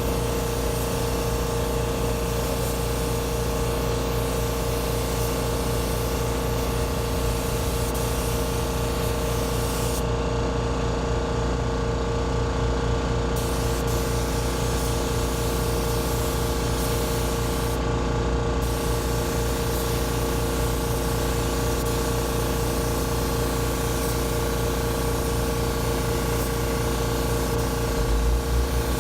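Automotive paint spray gun hissing steadily as a second coat goes onto a car bumper, with two short breaks in the hiss where the trigger is let off, about ten seconds in and again near eighteen seconds. A steady motor hum runs underneath.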